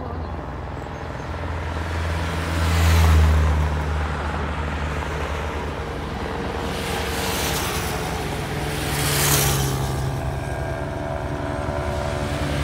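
Race convoy vehicles passing close by one after another over a steady low engine rumble: a car about three seconds in, then motorcycles at about seven and nine seconds, each swelling and fading as it goes by.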